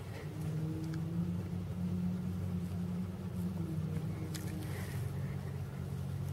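Low, steady engine drone, strengthening soon after the start and easing off near the end, with a sharp click about four seconds in.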